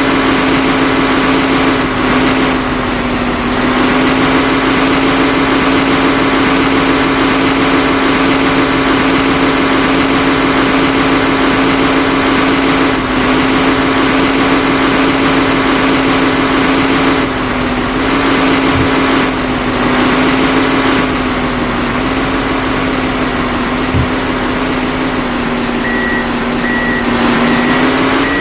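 Heavy diesel engine of a backhoe or dump truck running steadily, with a reversing alarm starting to beep about two seconds before the end.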